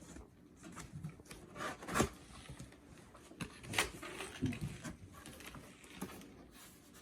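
Cardboard box being cut open and handled: irregular scraping, rubbing and rustling, with a few sharp clicks, the loudest about two seconds in and again near four seconds.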